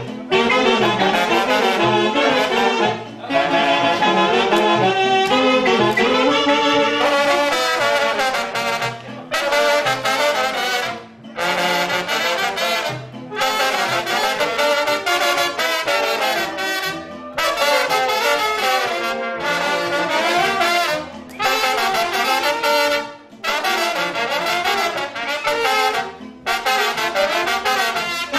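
Small brass band of saxophones, trumpets and trombones playing a tune together, in phrases broken by short pauses.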